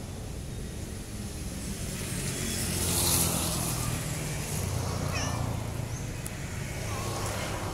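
Road traffic passing close by: a steady engine rumble that swells as a vehicle goes by about three seconds in. A short cat meow comes around five seconds in.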